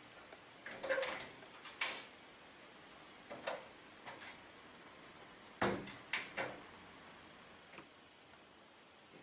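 Scattered household knocks and clicks, about eight of them at irregular spacing, the loudest about a second in and again a little past five and a half seconds in.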